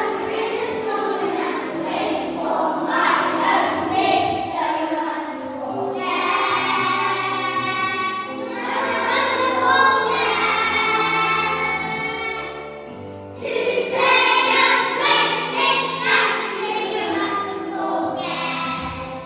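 A choir singing with instrumental accompaniment, in the high, light voices of children. The singing breaks off briefly about two-thirds of the way through, then resumes and fades out at the end.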